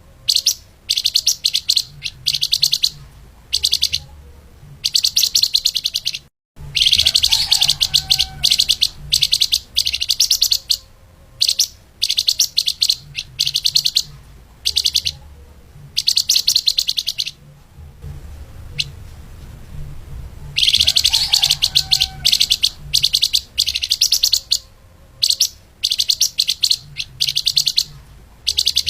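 Flamboyan (lemahan) songbird singing fast, dense high-pitched song phrases of rapid-fire notes, each about a second long and repeated with short gaps. The sound cuts out completely for a moment about six seconds in.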